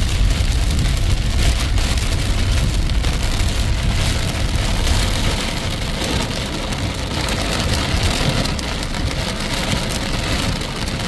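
Heavy rain pouring down steadily, with a deep rumble underneath that eases about halfway through.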